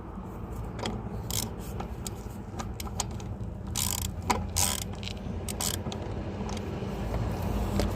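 Ratchet wrench clicking in short, irregular bursts as a lug nut is run onto a wheel stud, with metal clinks between.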